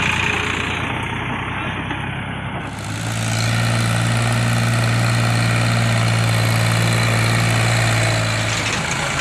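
Powertrac farm tractor's diesel engine running steadily while pulling a trailer of sand. Its hum grows louder and steadier from about three seconds in, easing off near the end.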